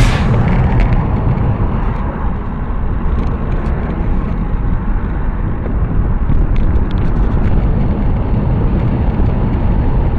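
Wind buffeting the microphone of a camera on a moving bicycle: a loud, steady low rumble, with a few faint ticks about six to seven seconds in.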